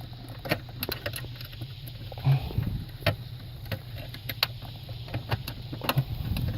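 Scattered small metallic clicks and taps of a 10mm nut and socket on an extension being fiddled onto a stud under a car's dashboard, with a short low grunt of effort about two seconds in.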